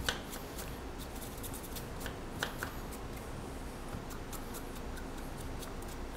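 Vegetable peeler scraping the skin off a yam in quick strokes: a run of short, irregular scrapes and light clicks.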